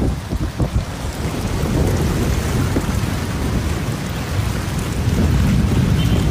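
Heavy rain pouring down over a flooded street, a dense steady hiss with a deep rumble underneath.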